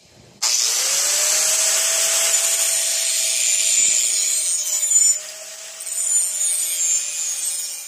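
Angle grinder starts up, its motor whine rising as it spins up. It then grinds the steel edge of a lawn mower blade clamped in a vise, a steady loud grinding hiss over the motor's whine, sharpening the bevel and working out deep nicks in the edge. The grinding is quieter for the last few seconds.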